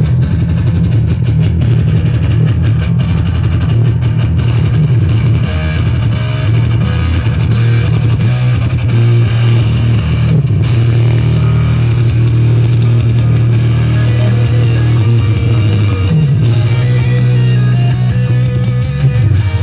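Loud rock music with guitar and heavy bass, played through a festival sound system.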